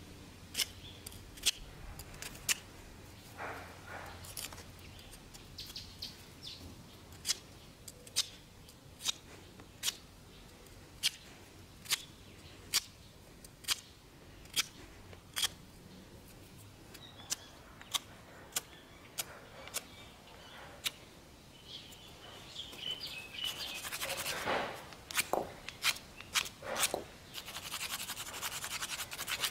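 Sharp taps of a pointed tool striking stone, about one a second. After about twenty seconds these give way to rough scraping and scratching as the point is drawn across the face of a large stone cobble, with more taps mixed in.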